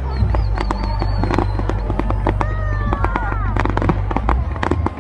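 Fireworks going off: rapid crackling pops and bangs, many a second, over a steady low rumble, with a wavering high whistle in the first second or so.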